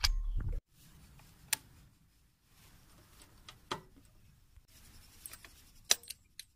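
Keys being turned in old motorcycle ignition switches: a few sharp clicks a second or two apart, after a short low rumble at the very start.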